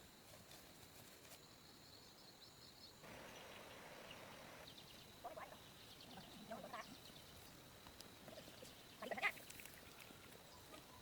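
Faint short animal calls, a few of them, the loudest about nine seconds in, over a faint steady high tone.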